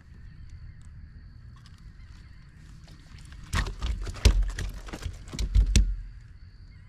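A caught flounder flapping against a rubber landing net and kayak, with a quick run of slaps and thumps starting about halfway in and lasting about two seconds.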